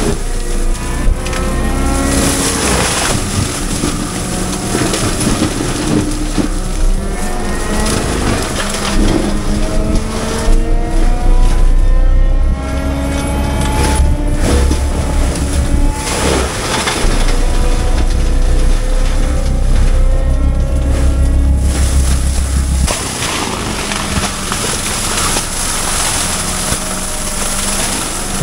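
Cat 299D3 compact track loader running hard, its engine pitch sliding up and down again and again over a heavy low rumble.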